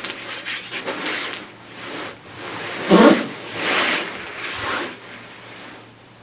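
Outdoorsman Lab ultralight inflatable sleeping pad rustling under a person as she rolls from her back onto her side on it, in several swells, the loudest about three seconds in.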